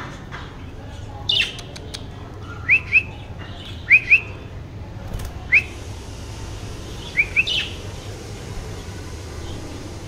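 Budgerigars chirping: about eight short, rising chirps, mostly in quick pairs.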